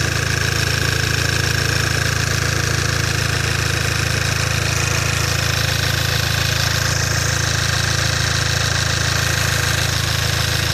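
Škoda Octavia A5 engine idling steadily, heard close up, with no clear squeak standing out.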